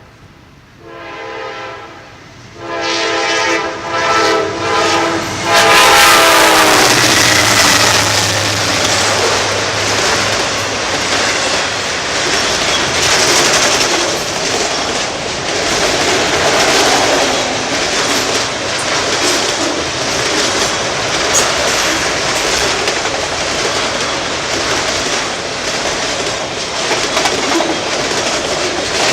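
Norfolk Southern locomotive sounding its horn in several blasts, the pitch dropping as it passes about seven seconds in. The train then rolls by, a loud steady rumble of wheels on rail with clicks running through it.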